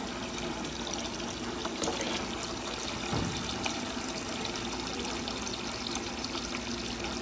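Tap water running steadily from a spout into a plastic bucket in a stainless steel sink, splashing into the water already in it as the bucket fills.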